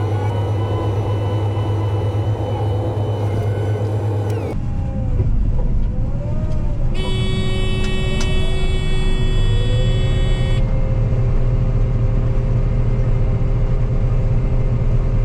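Combine harvester running steadily under harvesting load. The sound changes abruptly about four and a half seconds in, and a high steady tone sounds for about three and a half seconds in the middle.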